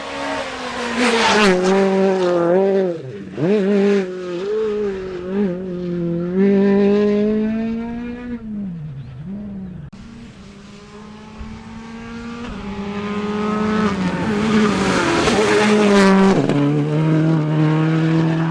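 Rally car driven flat out on a stage, its engine revving up and dropping through gear changes and lifts, then fading as it leaves. Another rally car then approaches, its engine growing louder until it passes near the end.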